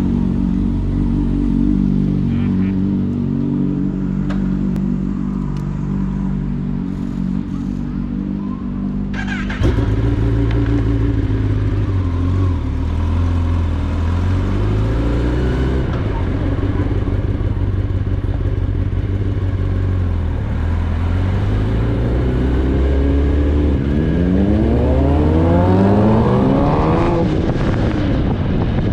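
Kawasaki Ninja ZX-10R's inline-four engine idling steadily. About ten seconds in it changes suddenly to a louder, deeper running as the bike rides off, its pitch shifting up and down. Near the end the engine revs up in a rising pitch under acceleration.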